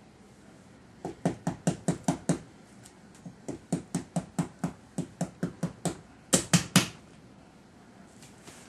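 A toddler slapping a large pumpkin with his hands like a drum: runs of quick knocks, several a second, ending with three louder strikes near the end.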